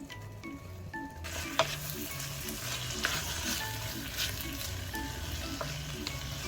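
Food sizzling in a frying pan, starting about a second in, with a sharp utensil clack shortly after it starts.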